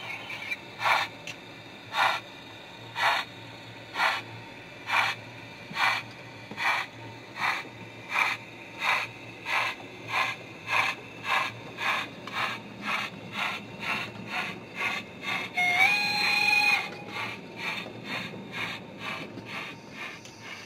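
Steam locomotive exhaust chuffs from the sound decoder of a DCC-fitted O gauge LMS tank engine. The beats quicken from about one a second to about two a second as the train gathers speed, and a short whistle sounds about two-thirds of the way through.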